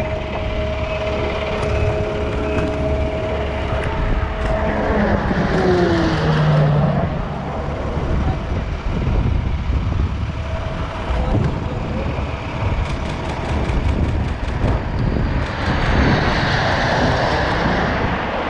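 Air tanker flying low overhead: its engine drone, two steady tones, drops in pitch as it passes about five seconds in. Near the end, a rising rushing hiss as its load of fire retardant falls.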